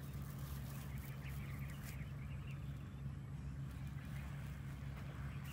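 A young macaque's faint squeaks in the first two seconds, over a steady low hum.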